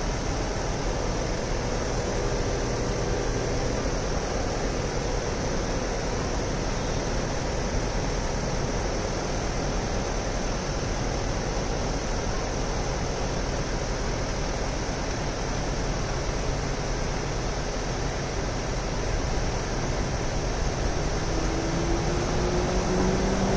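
Steady city street noise, a constant hiss over a low hum. Near the end a vehicle's engine approaches, rising in pitch and growing louder.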